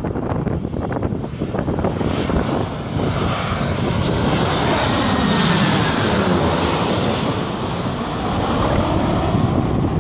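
Twin-engine jet airliner on final approach passing low overhead. The engine noise swells to its loudest about six seconds in, its whine falling in pitch as it passes, then recedes. Wind buffets the microphone throughout.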